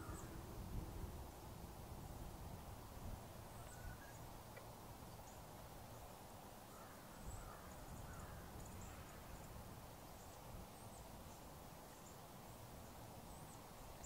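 The siren's tone sags in pitch and cuts off right at the start. What follows is quiet outdoor ambience: a low rumble of background noise, with scattered faint bird chirps and calls.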